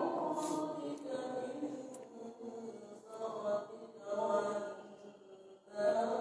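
Voices chanting in Arabic to a slow melody with long, wavering held notes over the mosque's sound system, in the interval between pairs of tarawih prayer units.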